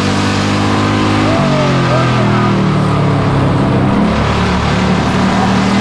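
Pure stock race car engine running hard under racing load, heard from inside the cockpit. Its note drops about a second and a half in, then picks up again around four seconds in.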